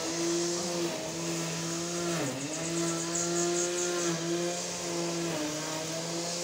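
Grass-cutting machine running with a steady, pitched motor hum that sags briefly in pitch about two seconds in and shifts again near the end.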